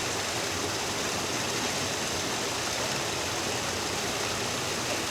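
Steady rush of flowing water, an even noise with no distinct events.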